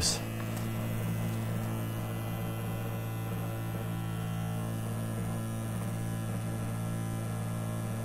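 USB mini dishwasher running its vibration cycle in a sink of soapy water: a steady low electric hum.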